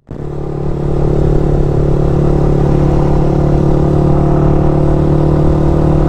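Yamaha R15's single-cylinder engine running at a steady cruise, holding one constant note with wind rushing past. It fades in just after a brief dropout at the start.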